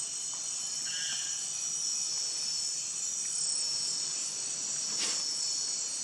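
Nighttime rainforest insect chorus, crickets and other insects giving a steady high-pitched shrill drone, with a faint short chirp about a second in.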